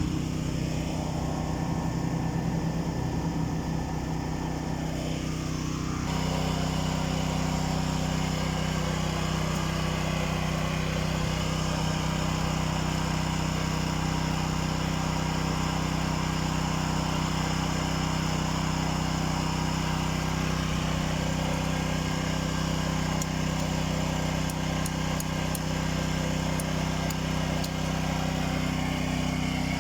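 Small portable generator engine running steadily, powering the fusion heating plate; its note changes and grows fuller about six seconds in.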